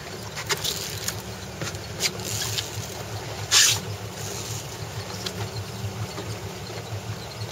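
Boat motor running steadily at low speed, with scattered small knocks and one short splash about three and a half seconds in.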